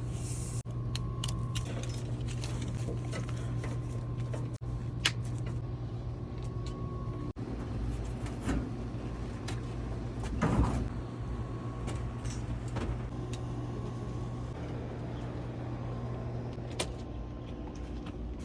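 Steady low machine hum, with scattered clicks and knocks and a short scraping rustle about ten seconds in.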